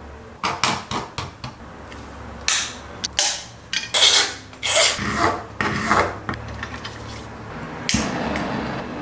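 A run of quick, irregular hand rubbing and scraping strokes on a workpiece, over a steady low hum, then a single knock near the end followed by a steadier noise.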